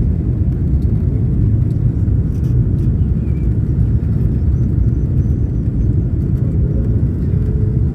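Steady low rumble inside the cabin of an Airbus A330 on final approach: engine and airflow noise carried through the fuselage.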